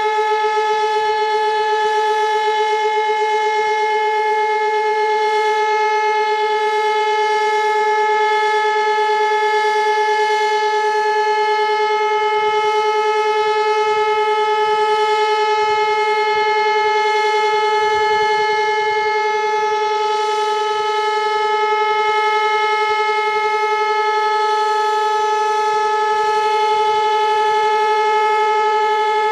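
Elektror L1/F2 electromechanical rotor siren sounding one steady, unbroken tone at constant pitch and level. This is the continuous-tone signal of the Czech monthly noon siren test.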